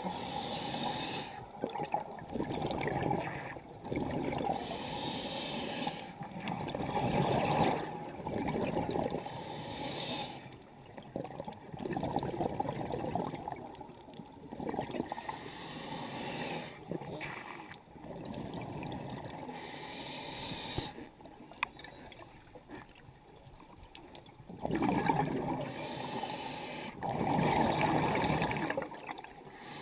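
Scuba diver's regulator breathing heard underwater: exhaled bubbles gurgle out in surges of a second or two with quieter gaps between, easing off for a few seconds past the middle and coming back strongly near the end.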